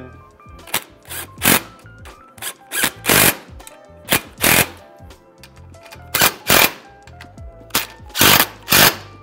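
DeWalt cordless impact driver hammering in a series of short bursts as it runs down and tightens the rack's bracket bolts, over background music.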